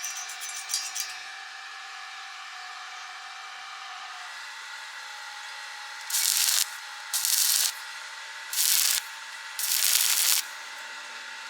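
Arc welding in four short bursts of loud hiss, each half a second to a second long, with a few clicks about a second in.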